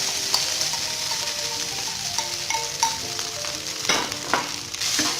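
Instant noodles sizzling in hot oil in a frying pan while being stir-fried, with a few sharp clicks about four seconds in.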